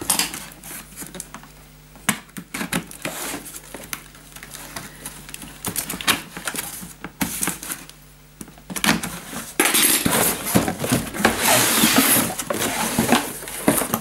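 A cardboard box being opened by hand: scattered knocks, clicks and scraping of the flaps and torn tape, then from about ten seconds in a louder stretch of rustling as the packaging and plastic-wrapped parts inside are handled.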